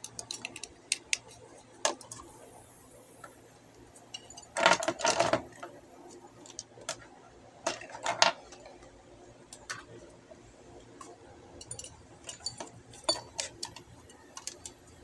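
Eating noises: scattered sharp clicks and clinks of a spoon against a plate of instant noodles, with a louder noisy burst about five seconds in and another near eight seconds.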